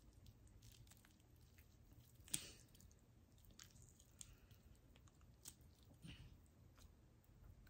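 Faint wet squishing and a few soft clicks as fingers twist and pull the bones out of a sauced chicken wing, the sharpest click about two seconds in.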